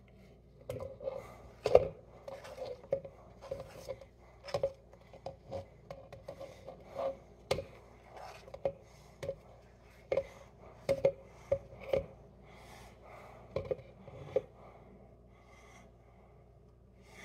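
Cucumber chunks being pushed off a cutting board into a clear plastic blender cup: irregular light knocks as pieces drop in and hit the cup, with scraping of fingers and board edge between them, about one or two a second.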